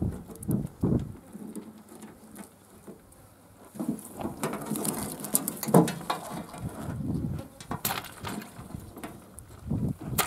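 Handling noise as a mesh yabby trap is emptied onto a ute tray: scattered taps, rustles and clicks as the freshwater crayfish drop out and are picked up, with a few sharper knocks. There is a lull a couple of seconds in, then busier rustling and tapping.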